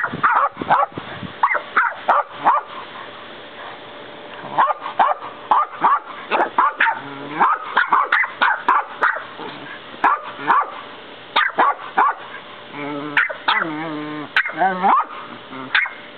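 West Highland white terrier puppy yapping: quick runs of short, sharp barks with brief pauses between them, and a few longer wavering barks near the end.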